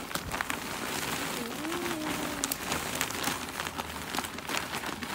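Potting mix pouring from a bag into a fabric grow bag: a steady patter of falling soil, like rain on a surface.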